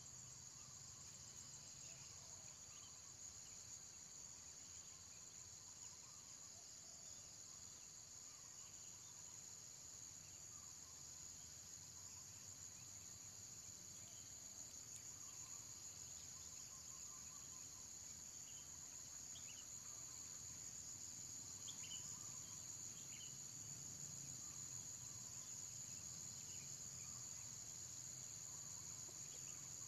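Steady, high-pitched insect chorus with a fast pulsing texture, with faint, short chirps scattered through it.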